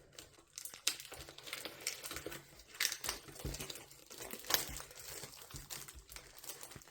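Plastic wrapping on a cardboard card box crinkling and tearing as it is pulled off, in irregular crackles and snaps.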